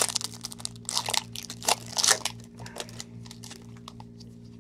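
Foil wrapper of a Bowman Chrome baseball card pack being torn open and crinkled by hand. A flurry of sharp crackles fills the first three seconds or so, then it goes quieter.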